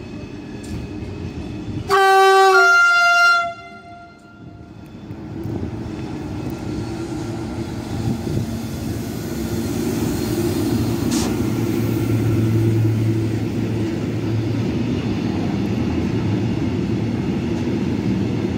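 SNCF BB 26000 electric locomotive sounding its horn once, about two seconds in, a short two-note blast that steps down in pitch. The freight train then draws near and passes, a rising, then steady rumble of the locomotive and the steel-coil wagons rolling over the rails.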